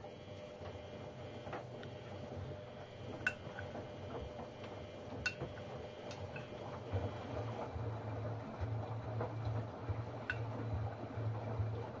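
Three LG front-loading washing machines running a wash cycle together: drums tumbling wet laundry with water sloshing over a low motor hum that pulses more strongly from about halfway on. Three sharp clicks stand out along the way.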